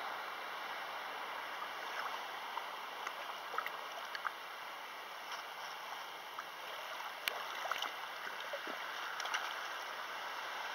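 Lake water lapping on a pebble shore: a steady wash with scattered small clicks and splashes.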